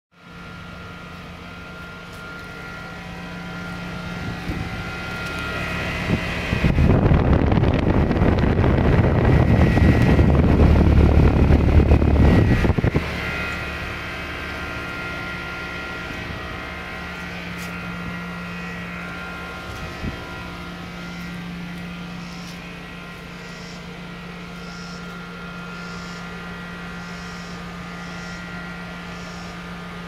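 Rheem outdoor HVAC condensing unit running with a steady mechanical hum. About seven seconds in, a much louder rushing noise starts and cuts off about six seconds later.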